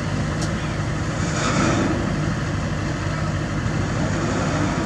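Kobelco SK200 excavator's diesel engine running steadily, with a brief rise of hydraulic-type hiss about a second and a half in.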